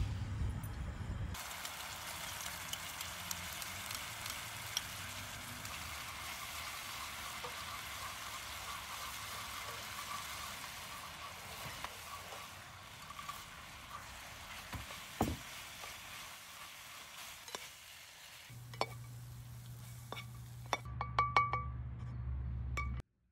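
Sweet-and-spicy chili sauce sizzling steadily in a nonstick frying pan as it is stirred and reduced with a silicone spatula. Near the end the sizzle dies down and the spatula clicks and scrapes against the pan several times as the coated anchovies are scraped out.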